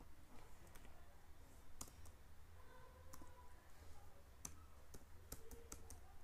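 Faint computer keyboard keystrokes as an ID number is typed in: separate sharp clicks at uneven intervals, several coming in quick succession in the second half, over a low steady hum.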